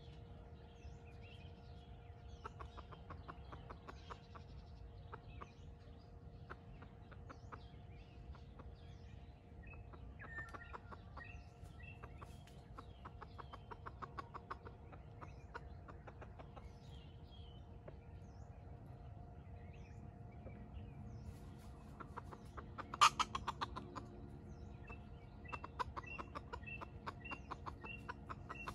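Red junglefowl (wild chicken) clucking in runs of short, quick notes, with a louder burst of calls about 23 seconds in. Small birds chirp faintly, and a steady faint tone runs underneath.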